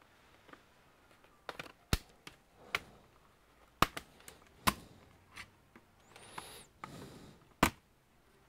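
Bottom cover of a Gigabyte Aero 15 laptop being pried off by hand with a pry tool: its retaining clips snap loose one at a time, about six sharp clicks spread over several seconds, with light plastic rustling between them.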